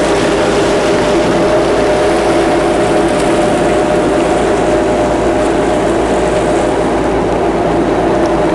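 Power boat's engine running steadily under way: a constant drone over a broad, even rushing hiss.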